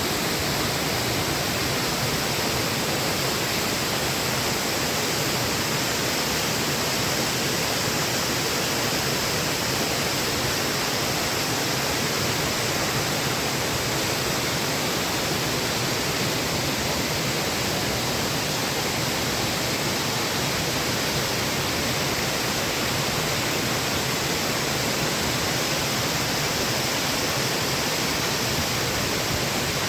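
Waterfall: water pouring and crashing in a steady, unbroken rush.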